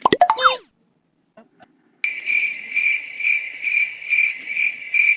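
A quick rising whistle-like sound effect, then after a pause a high, even chirping that pulses about three times a second and starts and stops abruptly, like a cricket sound effect.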